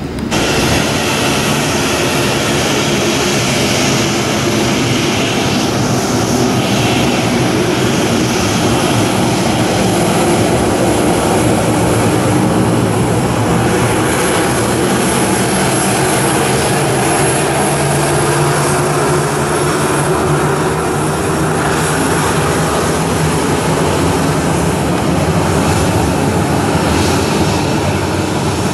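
CFM56 turbofan engines of a Boeing 737-800 running steadily at taxi power, a continuous rumble with a thin high whine held on top.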